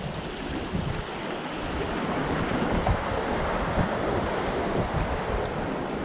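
Small sea waves washing against a rocky shore, the wash swelling over the middle few seconds, with wind buffeting the microphone.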